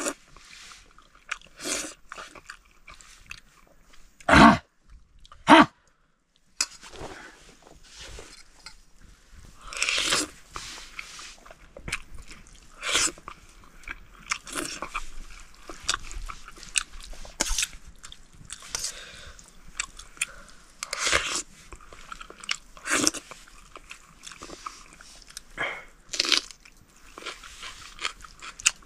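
People eating noodle soup: irregular chewing and eating sounds close to the microphone, with two louder knocks about four and five and a half seconds in.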